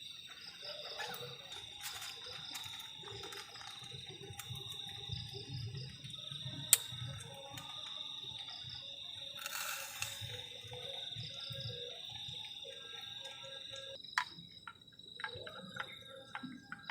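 Crickets trilling steadily in a night chorus, with a sharp click about seven seconds in and a short hiss around ten seconds.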